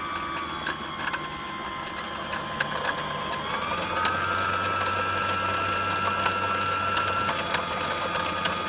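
Brother LX27NT sewing machine's motor running steadily to wind a bobbin, a continuous whine with light clicking. The pitch dips slightly, then rises to a higher steady speed about four seconds in as the foot controller is pressed further.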